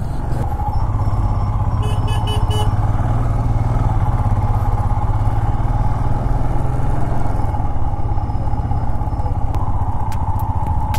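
Motorcycle engine running steadily while riding, a constant low rumble with a steady mid-pitched drone. About two seconds in comes a brief string of rapid high pips.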